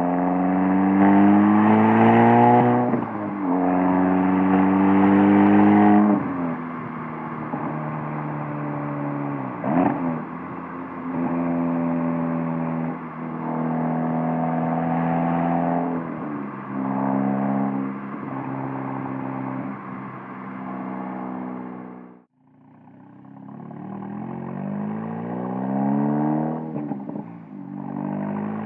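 Exhaust of a Golf R's turbocharged 2.0-litre four-cylinder through a Borla S-type valved catback, picked up at the bumper, pulling through the gears: the note climbs, drops at each upshift of the six-speed manual, holds steady for a stretch at cruise, then climbs again near the end.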